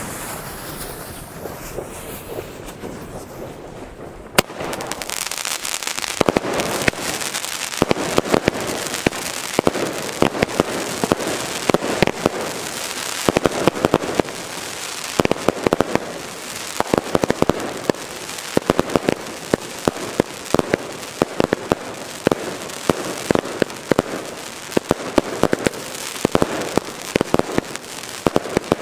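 Four Nico Time Rain firework cakes going off. For about four seconds only the lit fuse hisses. Then comes a sharp first shot, followed by a rapid, unbroken run of launches and bursting shots.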